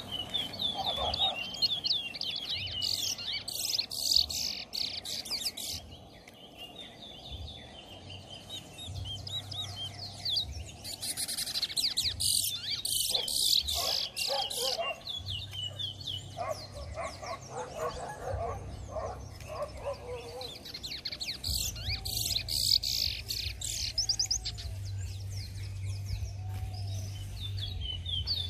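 Caged male large-billed seed finches (towa-towa) singing fast, high warbling song in bursts of a few seconds, about three times: competitive singing in a head-to-head song match.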